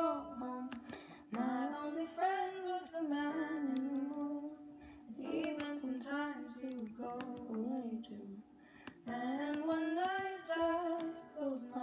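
A female voice singing a melody in long held phrases that break off and start again, with faint music behind it.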